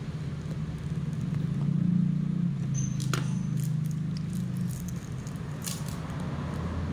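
Steady low machine hum that swells slightly about two seconds in, with a few light clicks near three and six seconds in.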